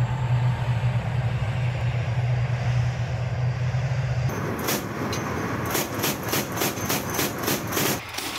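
An upgraded T-90 tank's V-12 diesel engine running with a steady low drone. About four seconds in this gives way to the clatter of its steel tracks, a regular clacking about three times a second.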